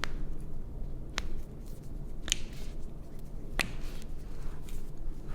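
Joints of the foot cracking during a chiropractic foot adjustment: about four sharp, separate pops, roughly a second apart.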